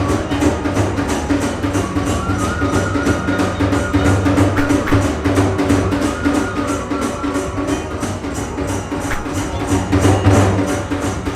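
Fast, driving percussive music with drums and jangling cymbals keeping a quick even beat and a thin held melody line above, in the style of Iwami kagura accompaniment.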